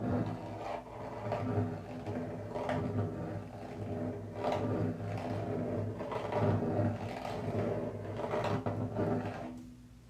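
Hand-held frame drum's head being rubbed with the tip of its beater, giving a continuous resonant rumbling scrape that swells and fades unevenly. It stops shortly before the end.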